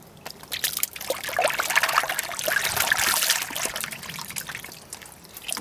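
A bucket of thick gunge pouring over a person's head, splattering and dribbling off. It builds up about a second in and thins out near the end.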